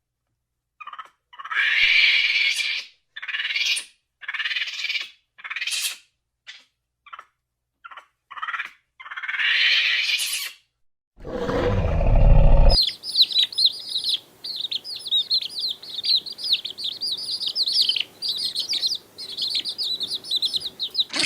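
A series of short, harsh animal calls, one after another, then a brief loud low-pitched call, then the rapid high twittering of many small birds chirping together.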